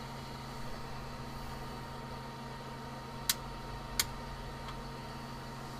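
Two short, sharp clicks about two-thirds of a second apart, over a steady low hum: the finished plastic 3D print being pulled off the da Vinci printer's build plate.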